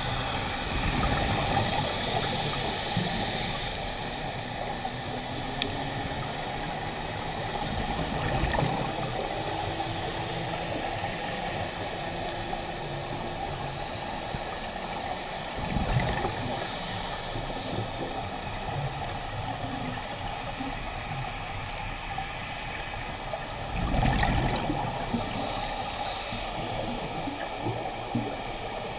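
Scuba diver's breathing heard through an underwater camera: exhaled bubbles gurgle up in a louder burst about every eight seconds, with a steady underwater hiss between breaths.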